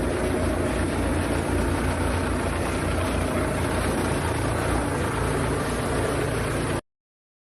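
Steady running noise of an industrial processing machine, with a low rumble underneath; it cuts off abruptly near the end.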